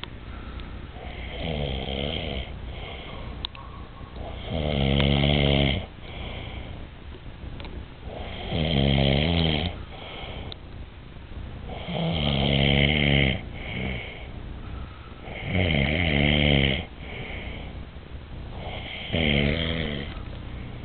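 A sleeping man snoring: six loud snores, each about a second long, about one every three and a half seconds, with quieter breathing between.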